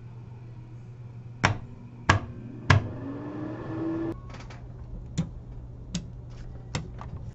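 Three rocker wall switches flipped one after another, three sharp clicks about two-thirds of a second apart, followed by a faint rising whine. Then a run of lighter clicks as the switches of a Hakko 702 soldering and rework station are pressed, over a steady low hum.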